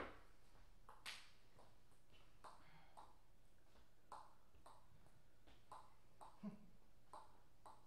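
Table tennis ball bounced lightly between points, making short, light clicks that come in pairs about half a second apart and repeat every second or so.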